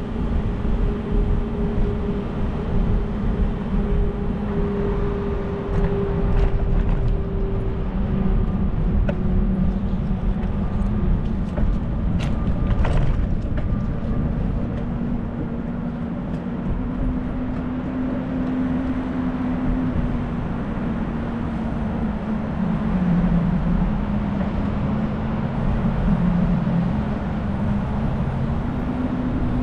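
Steady rumble of a bicycle ride through city streets, mostly wind and rolling noise, with the low hum of traffic drifting in pitch. A few sharp clicks come about halfway through.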